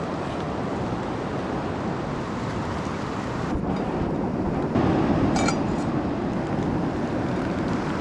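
Steady rushing of heavy rain together with a cascading river. About five seconds in there is a brief clink.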